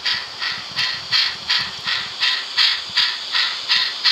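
N-scale model steam locomotive's DCC sound decoder playing steady, even steam exhaust chuffs, about three a second, through the model's small speaker.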